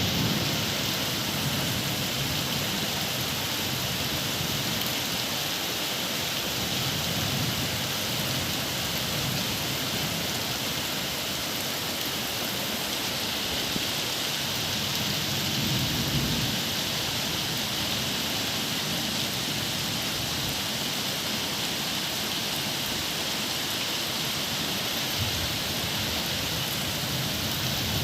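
Steady rain falling with an even hiss, and soft low rumbles swelling now and then, the loudest about halfway through.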